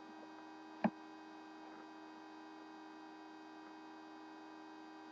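Faint steady electrical hum, with a single short tap about a second in.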